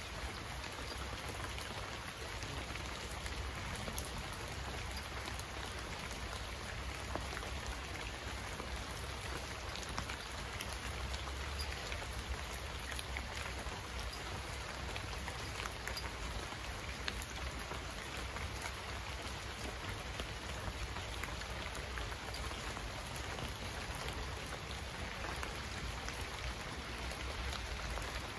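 Steady rain falling, an even hiss with scattered drops ticking sharply on a hard surface.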